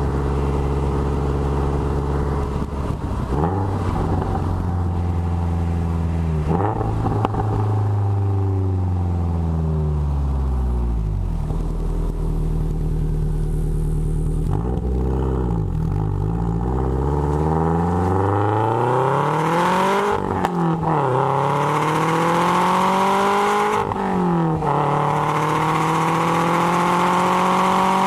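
Exhaust of a 2013 Subaru WRX's turbocharged 2.5-litre flat-four, fitted with Killer B equal-length headers and a Maddad turboback exhaust, heard right at the tailpipes. The engine note falls and rises through gear changes, then climbs in hard acceleration pulls, dropping sharply at upshifts about 20 and 24 seconds in.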